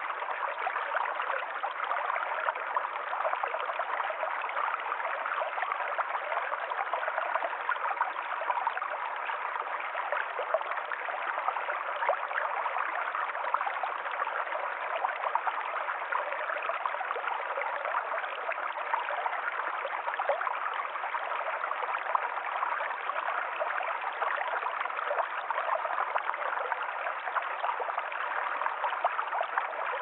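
Small rocky stream running steadily, an even rushing and trickling of water over stones.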